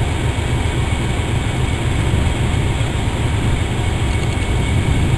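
Diesel locomotive engine running steadily with a low rumble as it moves slowly over pointwork.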